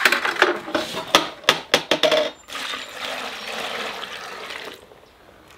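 Skim milk poured from a plastic bucket into a metal pail of food scraps: a steady splashing pour lasting about two seconds. Before it come a quick series of knocks and clatter as the bucket is handled.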